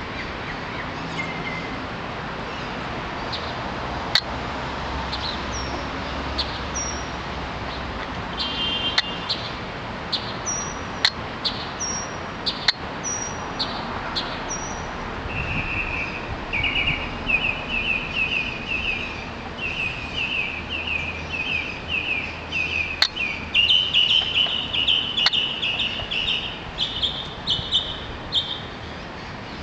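Songbirds singing: scattered short, high chirps at first, then from about halfway a bird delivers a long run of rapid repeated chirps that grows louder near the end, over a steady background hiss.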